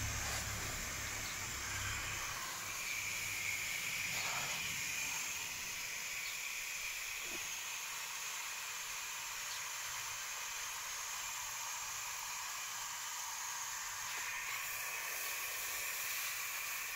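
Water spraying steadily from a garden hose nozzle on its shower setting onto large leaves and foliage, a steady hiss.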